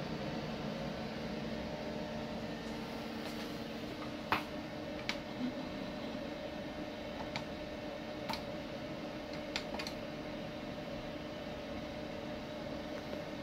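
Steady fan hum from a Roland LEC-330 UV printer/cutter, with about six short clicks as the arrow keys on its control panel are pressed to set the media width, the loudest about four seconds in.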